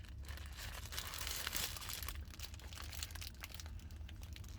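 Paper food wrapper or bag crinkling and rustling as it is handled, busiest a second or two in, over a steady low hum.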